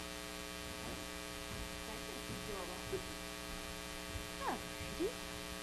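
Steady electrical mains hum in the room's sound system, with a few faint, distant voice-like sounds about halfway through and near the end.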